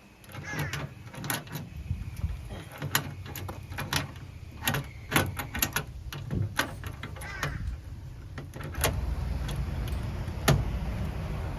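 Irregular sharp knocks and clicks, as of hard objects being handled, then from about nine seconds in a steady low rumble joins them, with one more loud knock soon after.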